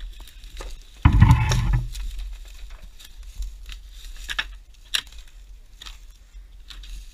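Footsteps through dry brush and dead branches, with twigs crackling and snapping in scattered clicks. About a second in comes a louder burst of noise that lasts about a second.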